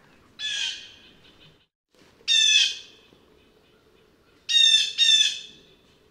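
Blue jay calling: four 'jay' calls, the first softer and the last two in quick succession, with faint high chirping in between.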